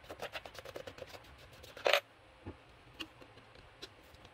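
Plastic air-cleaner cover on a Kohler mower engine being worked off by hand: a quick run of light clicks and rattles for about two seconds, then one louder knock, followed by a few scattered single clicks as a screwdriver is put to the cover.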